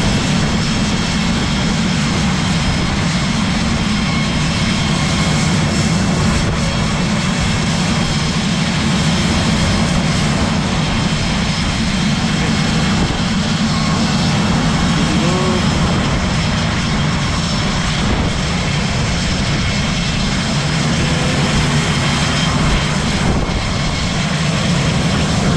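Steady loud mechanical drone with a rushing hiss, with a few faint steady high whines on top, as a hose nozzle sprays de-icing fluid onto an aircraft.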